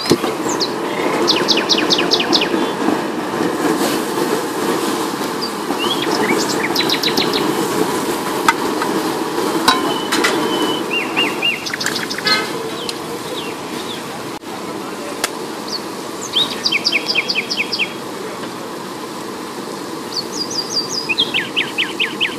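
A bird sings short, rapid trills of high chirps, one burst every few seconds, over a steady low rushing noise.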